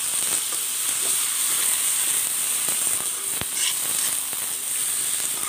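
Cubed brinjal (eggplant) and potato sizzling in hot oil in a steel kadai, a steady frying hiss, with a few light clicks about three seconds in.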